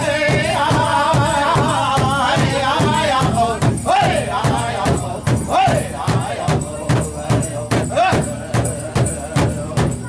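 Powwow drum group singing around a big drum: high chanting voices over a steady, even drumbeat. The singing is dense for the first few seconds, then thins to single sung phrases while the drum keeps going.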